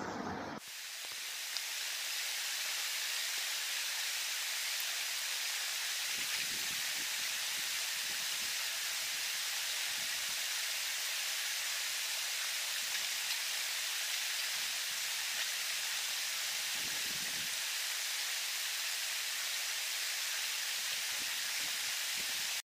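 Small waterfall, running low, splashing into a rock pool: a steady rushing hiss that cuts off abruptly at the very end.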